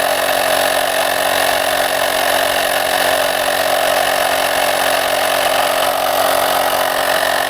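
Portable electric bike pump running steadily, its motor-driven compressor pumping air into an e-bike tire.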